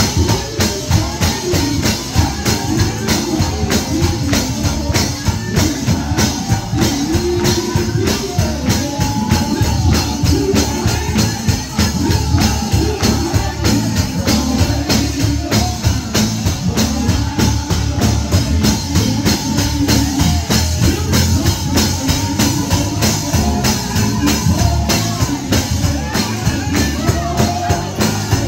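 Live gospel music: a singer over a steady, driving beat of tambourine and drums.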